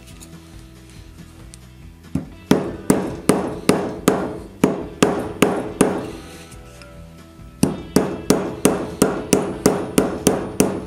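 Small hammer on an iron anvil block, peening the metal eyelets of a Kydex knife sheath to set them. Sharp metallic ringing strikes at two to three a second begin about two seconds in, stop briefly after about six seconds, then start again a little faster.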